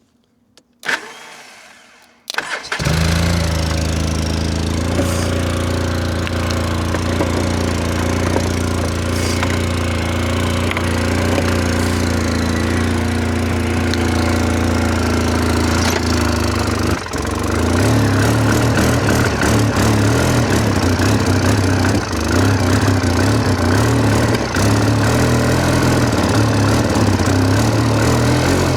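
Choked gasoline engine started cold, catching about two and a half seconds in and then running steadily. About 17 seconds in it dips briefly, then runs on with a changed, louder low note.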